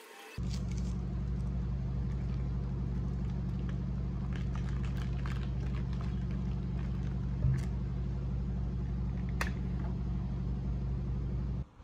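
A steady low machine-like hum starts suddenly and cuts off near the end, with a few light clicks over it and one short knock a little past the middle.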